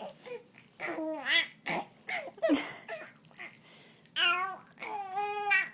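A baby babbling and vocalizing: a string of short high-pitched sounds that bend in pitch, then two longer drawn-out voiced sounds near the end, the last one wavering quickly.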